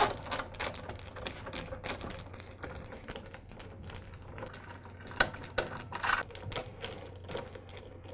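Hand screwdriver backing screws out of a miter saw's plastic handle: a run of small, irregular clicks and ticks, a few of them louder about five and six seconds in.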